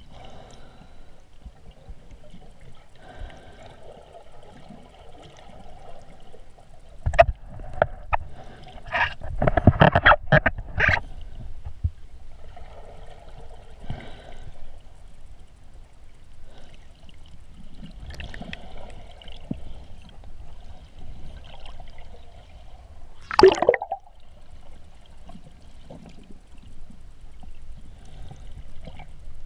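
Muffled underwater sound recorded by a camera in its waterproof housing: water swirling and sloshing against the case as the swimmer moves. A cluster of loud knocks and bumps comes about seven to eleven seconds in, and one more loud burst with a falling sweep about twenty-three seconds in.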